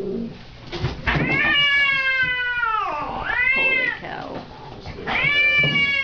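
Domestic cat yowling while held down in a towel on a vet's exam counter for handling: one long drawn-out yowl that drops in pitch at its end, a short one, then another long yowl starting near the end.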